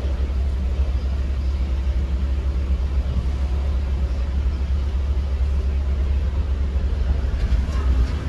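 Ford E150 van's engine running at idle, a steady low rumble heard inside the cabin.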